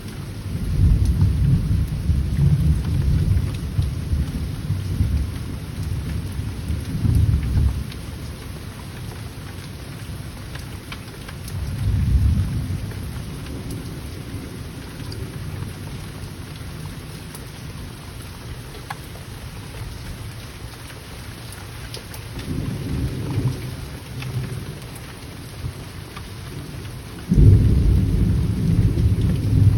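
Steady rain with thunder rumbling low several times: a long roll at the start, shorter ones in the middle, and a louder rumble that breaks in suddenly near the end.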